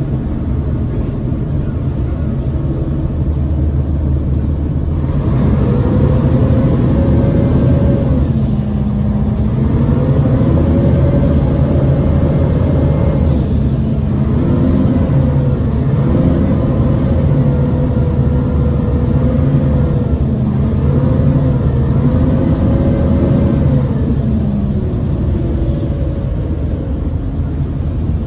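Mercedes-Benz Citaro G articulated bus heard from inside the cabin while driving: a steady low rumble of engine and road, with a tone from the drivetrain that rises and drops several times through the middle as the bus changes speed.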